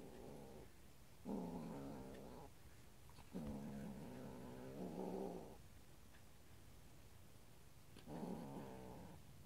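Kitten growling over a toy it has caught, a possessive play growl. One growl is already going at the start, then three more drawn-out growls follow with pauses between; the third is the longest, about two seconds.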